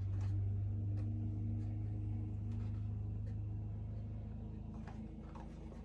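Lawnmower engine running steady, a low drone with a few higher tones, slowly fading toward the end. A couple of faint clicks sound over it.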